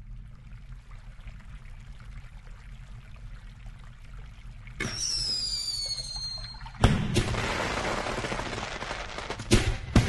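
Fireworks: a low rumble, then about five seconds in a whistling rocket whose pitch falls, followed by a loud bang and crackling, with two more sharp bangs near the end.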